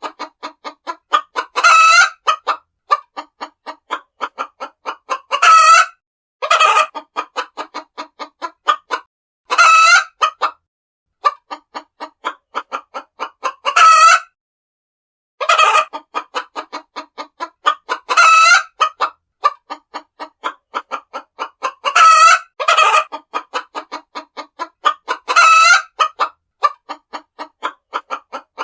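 Hens clucking in quick runs of short clucks, broken every few seconds by a louder, drawn-out call, with a pause of about a second midway.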